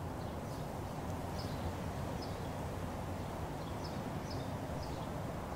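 Outdoor ambience: a steady low background rumble with small birds chirping briefly every second or so.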